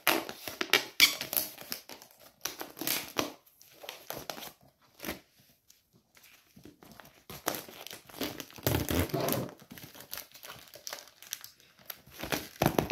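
Protective plastic film being peeled off a new skateboard deck, crinkling and tearing in irregular bursts. There is a pause of a second or so midway, then a denser stretch of crinkling.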